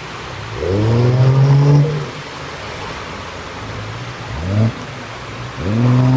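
A bystander's voice calling out in drawn-out exclamations three times, each rising in pitch and then holding, the first and longest about half a second in. Under them a steady rushing noise.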